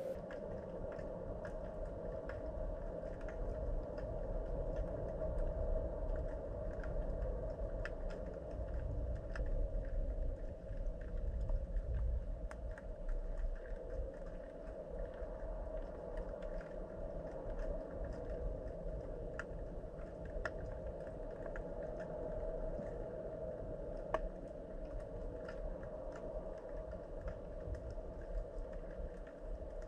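Underwater sound picked up by a submerged camera: a steady low rumble with a constant hum, and small irregular clicks and ticks scattered throughout, one sharper click near the end.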